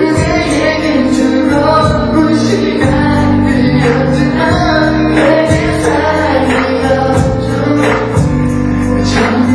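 Pop music with singing over a steady bass and beat.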